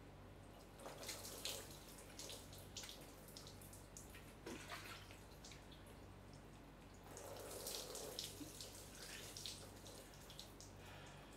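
Water poured from a plastic dipper over a person's head, splashing and dripping onto the floor: two pours, about a second in and again about seven seconds in, with faint drips between.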